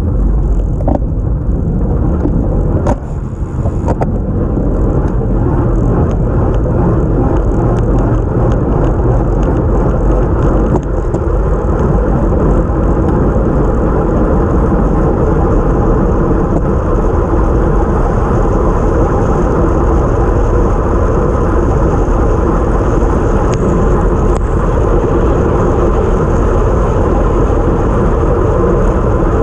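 Steady, loud rush of wind and tyre noise from a bike-mounted camera on a time-trial bike riding a wet road. There are a few sharp clicks and knocks in the first few seconds as it gets going.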